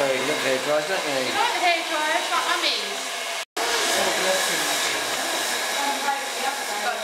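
Handheld hair dryer blowing steadily, a rush of air with a thin steady high whine from its motor. The sound breaks off for a moment about halfway through and comes straight back.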